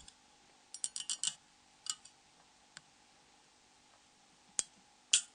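Small sharp clicks and taps from handling a mobile phone's plastic parts during disassembly: a quick run of about five clicks around a second in, then single clicks spread out, the loudest two near the end.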